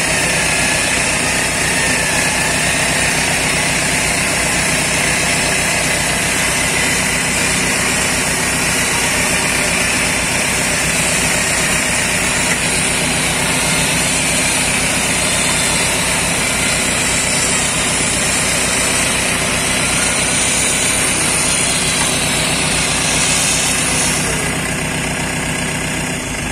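Willys Jeep's engine idling steadily while its front-mounted winch reels it forward along a taut line, with a steady high whine over the engine.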